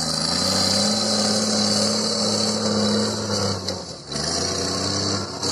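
Trial truck's diesel engine working hard under load as it climbs a steep dirt bank, a loud steady engine note that eases briefly about four seconds in and then picks up again.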